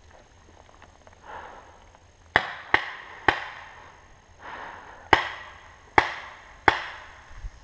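Paintball marker firing six single shots at irregular spacing: three sharp pops close together, a pause, then three more.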